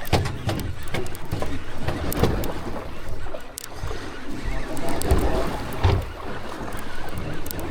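Sounds on a fishing boat's deck: scattered knocks and thumps over rumbling wind and water noise.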